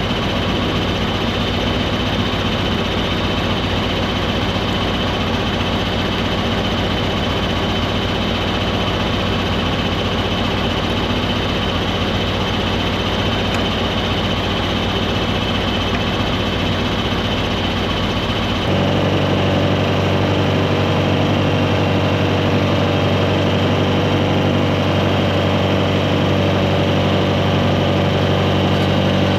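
A vehicle engine running steadily. About two-thirds of the way through, the sound changes abruptly to a steadier engine note with a clear, even pitch.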